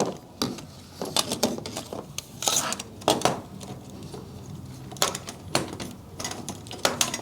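Irregular light clicks, taps and rattles of plastic and metal parts: a mobile phone clip holder being handled and screwed onto the mounting screw of an aluminium tripod head.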